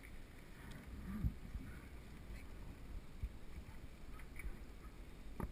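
Low rumble of wind on the camera microphone and mountain bike tyres rolling on asphalt, with faint scattered ticks from the bike. About a second in comes one short falling tone.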